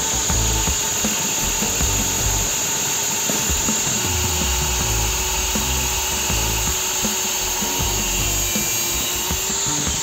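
Angle grinder with an abrasive disc grinding the end of a steel pipe, the motor running at a steady whine under load while metal is ground away.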